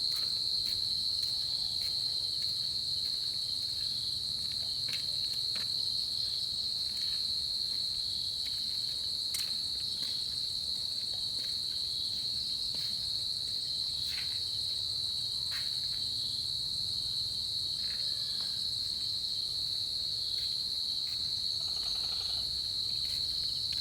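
Crickets chirping in a continuous night chorus, one steady high-pitched trill that never breaks, with a few faint scattered clicks.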